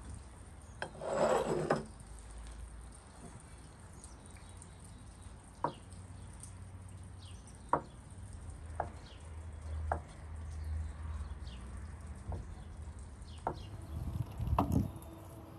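Kitchen knife slicing through hard-boiled eggs and striking a wooden cutting board: a handful of sharp single knocks a second or two apart. A short rustle comes about a second in.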